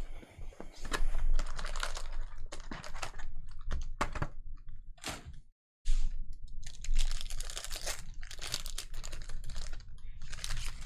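Trading cards and foil pack wrappers being handled: a dense, irregular run of short rustles, crinkles and card-flicking clicks as packs are opened and the cards flipped through. The sound drops out completely for a moment about halfway.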